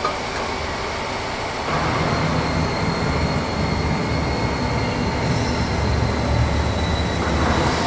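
CNC sheet-metal folding machine working as it bends a sheet. A low, steady rumble from its drive starts about two seconds in, over a steady high whine.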